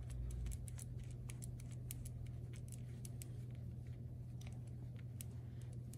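Small irregular metallic clicks of hex nuts being turned and handled on a threaded steel bolt, over a steady low hum.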